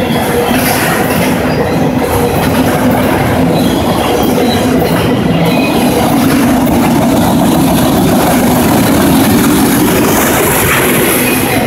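Freight train of autorack cars rolling steadily past close by, its wheels running on the rails with a light squeal.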